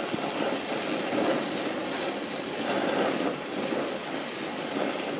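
DHC2000 oxyacetylene torch flame burning steadily with a rushing hiss while it welds chromoly tubing.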